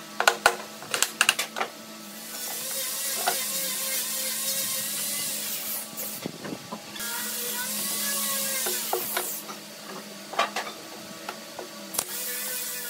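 Sharp clicks and knocks of a pneumatic nailer and wooden parts being handled, with two long stretches of steady hiss in the middle.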